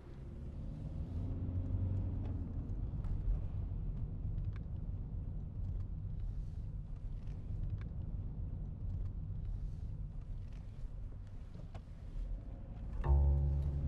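Steady low rumble of a car's engine and tyres heard from inside the cabin while it drives along. Near the end a low bowed-string music note comes in over it.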